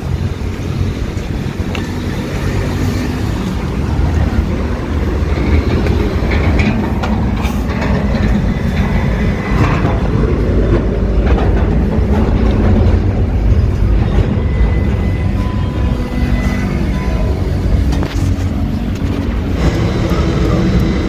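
Steady low rumble of road traffic and heavy vehicles, with scattered knocks and clatter.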